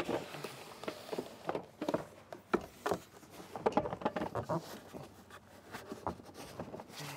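Portable plastic fridge being shifted and set into place on a carpeted platform: irregular light knocks, bumps and scrapes of its plastic case.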